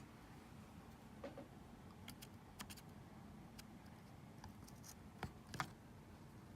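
Faint small clicks and taps of an NVMe SSD and its adapter being handled and pushed into a laptop's SSD slot, two slightly louder clicks about five and a half seconds in, over near silence.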